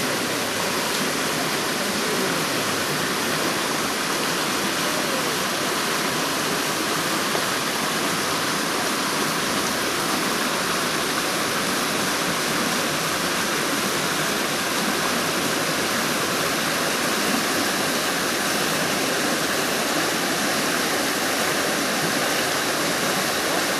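River water cascading over rocks in a small waterfall: a steady, even rush with no break.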